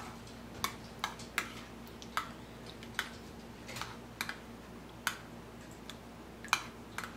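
Metal spoon clinking against a ceramic bowl while stirring melted butter and pressed garlic: about a dozen sharp, irregular clinks, roughly one or two a second.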